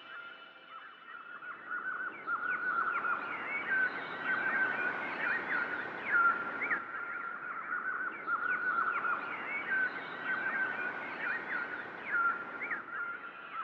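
A flock of small songbirds chirping and twittering in dense, overlapping calls, building up about a second in and easing off near the end.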